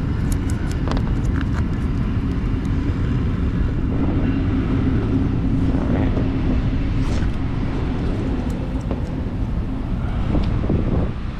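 Steady low rumble of a motor vehicle running, with a steady hum, and a few light clicks in the first second or two.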